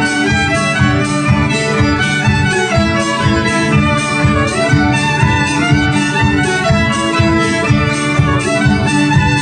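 Folk dance band playing an instrumental tune live, with fiddle and squeezebox-type reeds over a steady pulsing beat.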